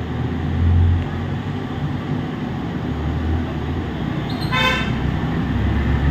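A vehicle horn gives one short toot, a little past four and a half seconds in, over a steady low rumble of road traffic.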